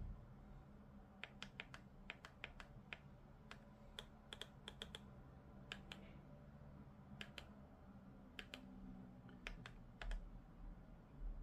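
Faint, crisp clicks of a TV remote control's buttons being pressed in quick runs of two to five presses, a couple of dozen in all.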